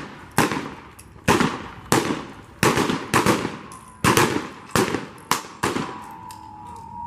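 Staged shootout with blank-loaded guns: about nine sharp gunshots, irregularly spaced over six seconds, each with an echoing tail.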